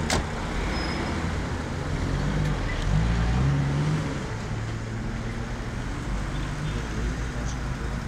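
Street traffic with motor vehicle engines running, a low hum that swells for about a second around three seconds in as a vehicle comes close. A short sharp click at the very start.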